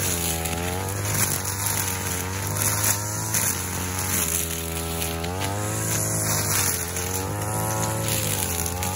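Backpack brush cutter engine running continuously, its pitch rising and falling every second or two as the blade is swung through the weeds.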